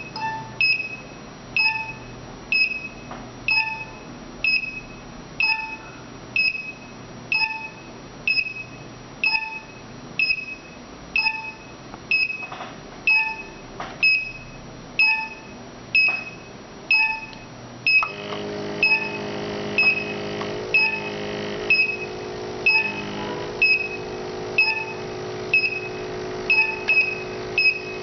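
Electronic beeper on a Jovy RE-7500 BGA rework station sounding short, evenly spaced beeps, about one and a half a second. About 18 s in, a steady humming drone starts and carries on under the beeps.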